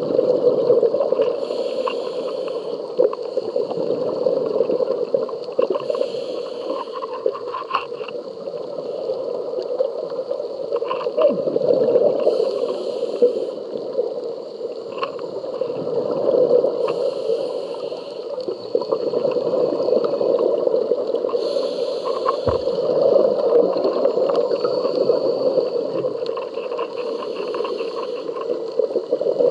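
Scuba diver's regulator breathing, heard through an underwater camera housing: a steady muffled underwater noise with a swell of hissing, gurgling exhaled bubbles about every five seconds.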